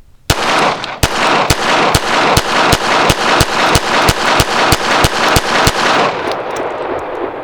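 Ruger Security-380 pistol firing a rapid string of about fifteen .380 aluminum-cased rounds, evenly paced at two to three shots a second. It stops about six seconds in, with echoes ringing between and after the shots.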